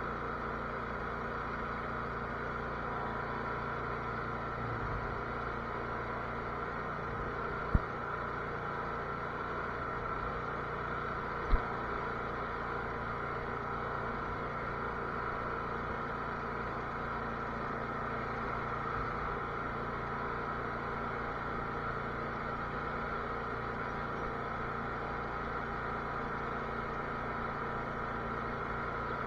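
Cub Cadet lawn tractor engine running steadily at an even speed. Two short sharp knocks stand out over it, about four seconds apart, a little over a third of the way in.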